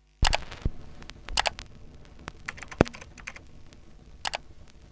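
Computer keyboard clicks: about nine sharp, separate taps at uneven intervals, some in quick pairs.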